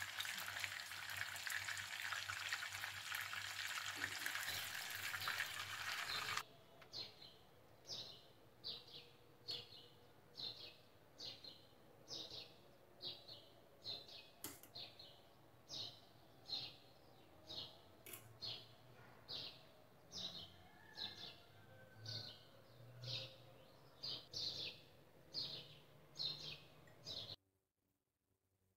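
Beef kofta meatballs sizzling as they fry in oil in a pan, cutting off suddenly about six seconds in. A steady series of short, high chirps follows, about one and a half a second, until near silence just before the end.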